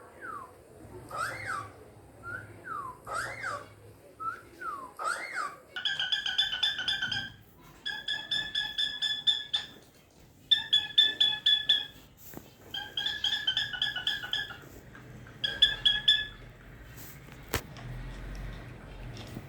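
Cockatiel whistling. First comes a run of rising-and-falling whistles about once a second, then several phrases of rapid pulsed notes. A single sharp click comes near the end.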